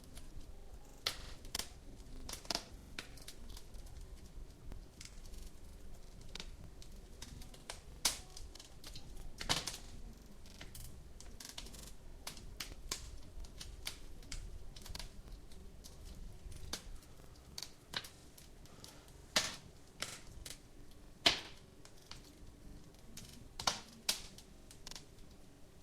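Wood fire crackling: irregular sharp snaps and pops at uneven spacing, a few much louder than the rest, over a faint low rumble.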